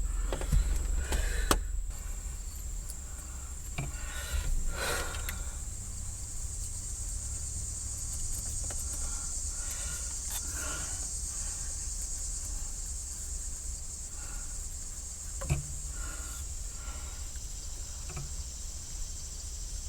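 Steady high-pitched chirring of crickets, with faint scattered clicks and scrapes of parts being handled, and one sharper click about fifteen seconds in.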